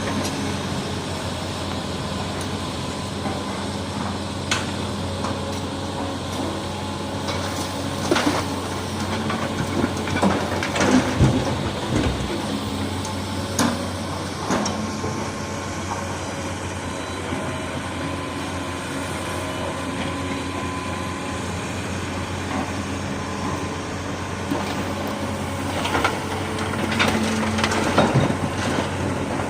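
Diesel engine of heavy earthmoving machinery running steadily, with clanks and knocks of metal and rock at intervals. The knocks bunch together around the middle and again near the end.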